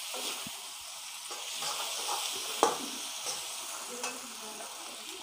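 Chilli chicken (fried chicken pieces with onion and capsicum in sauce) sizzling in a black kadai while being stirred with a steel spatula, which scrapes and clicks against the pan now and then; the sharpest knock comes about halfway through.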